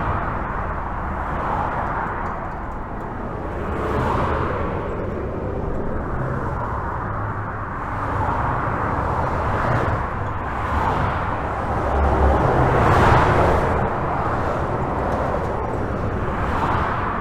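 Steady highway traffic heard from under a bridge: a continuous rumble of tyres and engines, rising and falling as individual vehicles pass every few seconds, the loudest pass about 13 seconds in.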